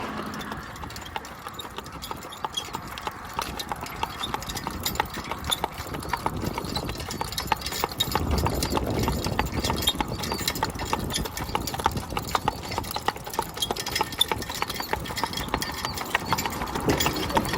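Hooves of a Tennessee Walking Horse clip-clopping as it moves along, in a quick, uneven run of sharp strikes.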